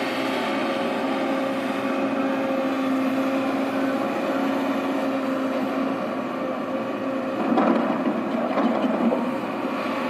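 Sumitomo SH210 hydraulic excavator's diesel engine running with a steady hum, getting louder and rougher for a moment about seven and a half seconds in as the machine works its arm.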